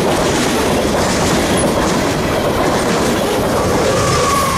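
CSX freight train rolling past close by: boxcars going by with steady wheel-on-rail noise and clickety-clack. A thin, high squeal comes in near the end as the rear distributed-power locomotive comes alongside.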